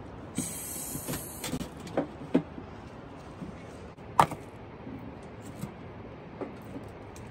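Wooden sticks knocking and scraping against square metal tins set in hot ashes and embers, as the fire around them is poked and rearranged. The knocks are scattered, with one sharp, loud knock about four seconds in.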